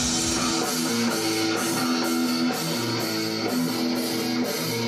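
Guitar-led rock music with repeated chords; the deep bass drops out about half a second in.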